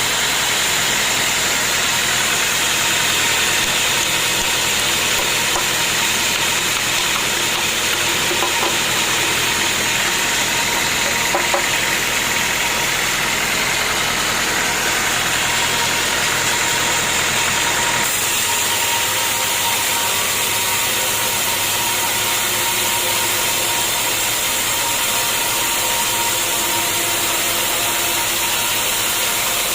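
Sawmill machinery running steadily, a loud even machine noise with a steady hum. About 18 s in it changes abruptly to a slightly different steady machine sound.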